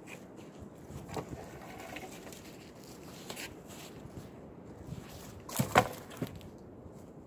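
A few footsteps crunching in snow, then a birch pole dropped onto a fallen log with a heavy wooden thud a little before six seconds in, the loudest sound.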